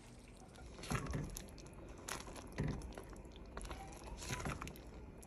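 Boiled lentils scraped out of a pot into a wok of cooked vegetables, then stirred in with a silicone spatula: spatula scrapes and soft knocks against the cookware in several short bursts.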